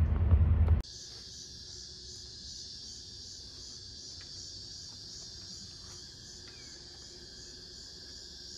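A low rumble of the boat under way cuts off about a second in. It gives way to a steady, high chorus of insects such as crickets.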